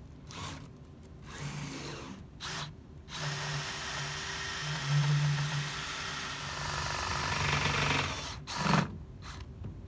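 Cordless DeWalt drill spinning a flap-wheel sander on an extension bar inside a boat's stern tube, cleaning out and slightly reaming the tube so the bearing will fit. It runs in a few short bursts, then for about five seconds without stopping, then one more short loud burst near the end.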